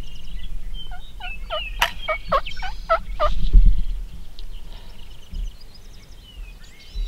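Wild turkey calling: a quick run of about eight notes, each dropping in pitch, with a sharp snap among them and a loud low thump just after. Small birds chirp faintly in the background.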